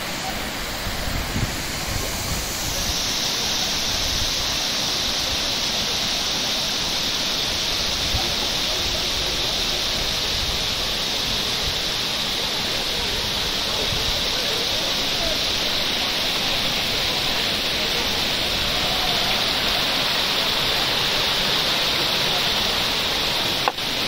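Shallow mountain stream running and splashing over rocks, a steady rush of water that grows brighter and hissier about three seconds in.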